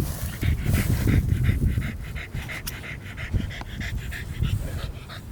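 American Bully dog panting quickly and rhythmically.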